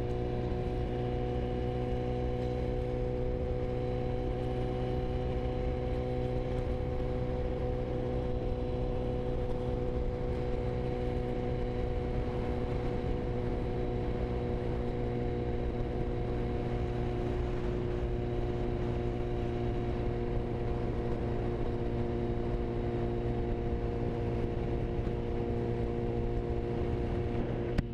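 Sport motorcycle's inline-four engine running at a steady cruise, its pitch holding constant, with wind and road noise underneath.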